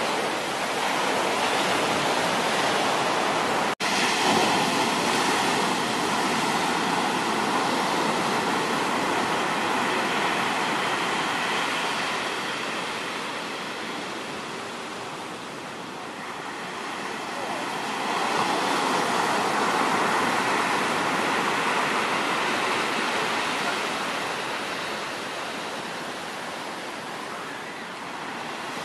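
Ocean surf breaking and washing up a sandy beach: a continuous rush that swells and fades slowly as the waves come in, cutting out for an instant about four seconds in.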